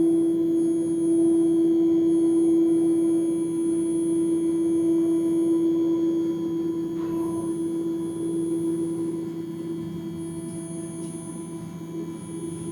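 CNC machine's axis drive motors whining with one steady tone as the head travels back to its origin point, slowly getting quieter over the last few seconds.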